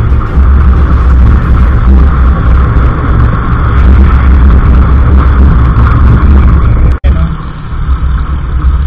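Loud wind rumble and road noise on a helmet-mounted camera microphone while riding a motor scooter at speed. The sound drops out for an instant about seven seconds in, where the recording cuts, then carries on somewhat quieter.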